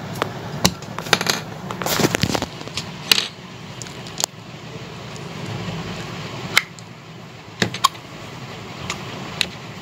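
Scattered light clicks and a short clattering rattle about two seconds in, from small hard plastic objects (abacus beads and stationery) being handled on a desk.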